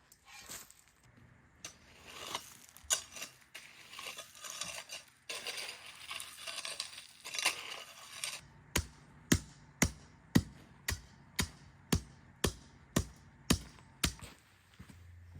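Irregular clattering and scraping, then from about halfway a steady run of sharp knocks, about two a second.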